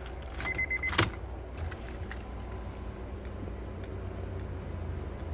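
Car keys jingling and the ignition key being turned in a Honda S2000. A short, high beep comes about half a second in, then a sharp click about a second in, over a low steady hum.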